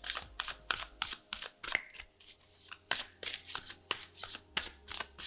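A tarot deck shuffled by hand, the cards slapping and flicking against each other in quick, even strokes, about four a second.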